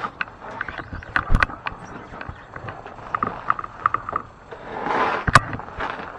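Fat-tire e-bike's rear freewheel ticking rapidly as the bike is rolled by hand, in short spells. A few sharp knocks are heard, the loudest about a second and a half in and again past five seconds, with a brief rushing noise just before the last knock.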